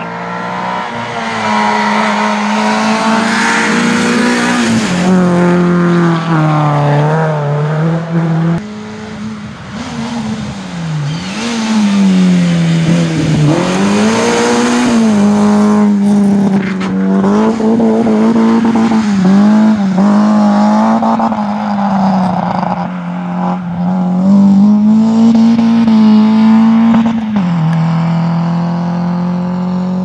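Rally cars on a gravel stage, engines revving hard and climbing in pitch. The note drops at each gear change, several times over, as the cars pass and pull away.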